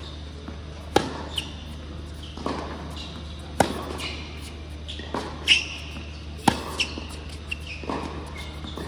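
Tennis rally in an indoor hall: sharp racket strikes and ball bounces every second or so, each ringing briefly in the hall, with short shoe squeaks on the court between shots.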